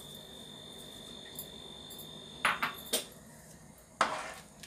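Slotted nylon spatula stirring thick milk in a metal cooking pot, with two short scrapes a little past halfway and a longer scrape near the end. A faint steady high-pitched whine runs under the first part and stops about three seconds in.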